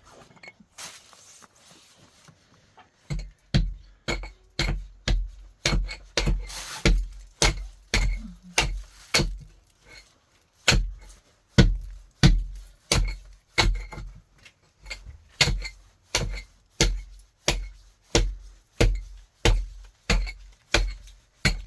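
Steady hammering, about two blows a second, starting about three seconds in, each blow a sharp knock with a deep thud and a short ring.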